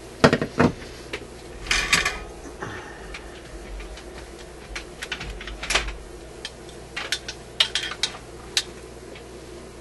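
Metal hand tools clicking and clinking against a vintage radio's steel chassis and the workbench, in irregular sharp knocks with a quick cluster about two seconds in.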